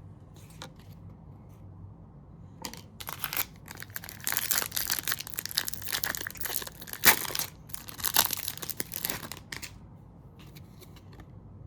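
Foil wrapper of a trading card pack being torn open and crinkled: a few seconds of crackling rustle, loudest a little past the middle.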